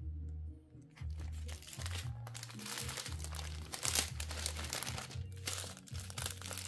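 Small plastic bags of diamond-painting drills crinkling and rustling as they are picked up and handled, over background music with a steady low bass line.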